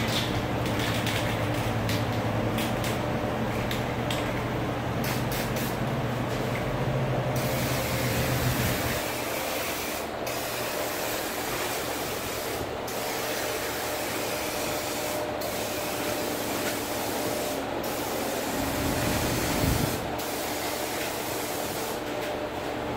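Paint sprayer spraying continuously, with short breaks about every two and a half seconds from the middle on, as the trigger is released between passes. A low hum under the spray stops about nine seconds in.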